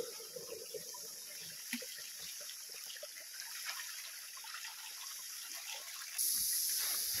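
Spring water trickling and splashing in a small rocky pool, with small irregular drips and splashes. A louder steady hiss sets in about six seconds in.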